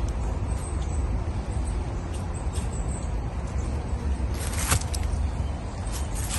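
Steady low outdoor rumble, with a short rustling hiss about four and a half seconds in.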